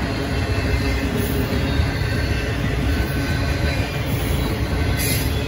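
Intermodal freight train's container cars rolling past at close range: a steady noise of wheels on rail, heaviest in the low end, with a brief high hiss near the end.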